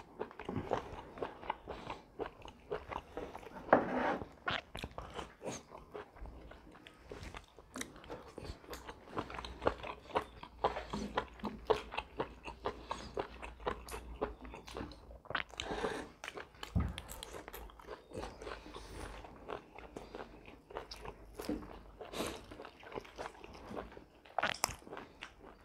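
Eating roast chicken and lettuce leaves with the hands: repeated crunching, biting and chewing, with the meat being torn from the bird.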